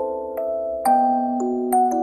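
Background music: a music box playing a slow, gentle melody, each plucked note ringing out and overlapping the next.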